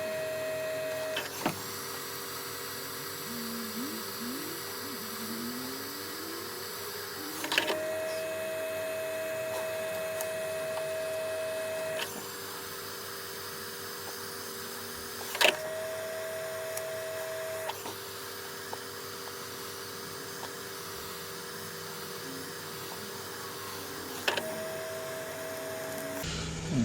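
Steady electric hum and whine from a small motor. A higher tone switches on and off several times, and a sharp click marks most of the switches.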